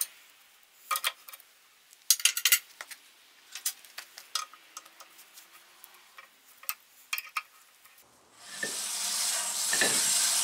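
Sharp metal clicks and clinks of an adjustable wrench working the pillow-block bearing bolts on the old cast-iron bandsaw's lower wheel shaft. About eight seconds in, a steady hiss begins and keeps going.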